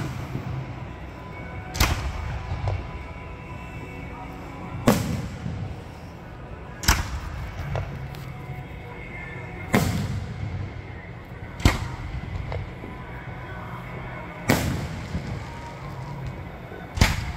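Aerial firework shells bursting overhead: seven sharp bangs a few seconds apart, each followed by a short rumbling echo.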